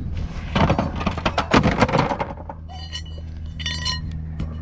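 Metal parts and hand tools clattering and clinking: a dense burst of rattling, then a few separate clinks that ring briefly near the end.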